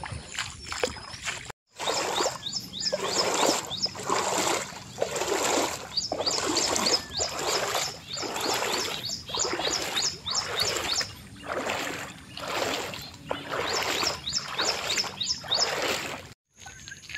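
Footsteps wading through shallow floodwater on a paved path, each step splashing, at a steady walking pace of a little more than one step a second.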